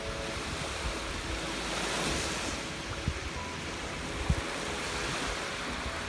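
Small waves breaking and washing up on a sandy shore: a steady surf hiss that swells about two seconds in. Two brief low thumps come near the middle.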